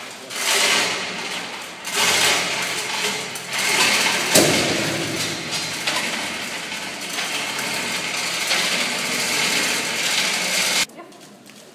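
Hoist mechanism lifting or lowering a 1.5-tonne oil-shale mine cart on straps, rattling in short spurts and then steadily, with one sharp metal clank about four seconds in; it cuts off suddenly near the end.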